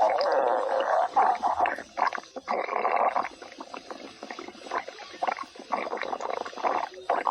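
A human stomach growling from hunger: wet, gurgling rumbles in uneven bursts, strongest in the first second and again around two and a half to three seconds in, then breaking into smaller gurgles and pops.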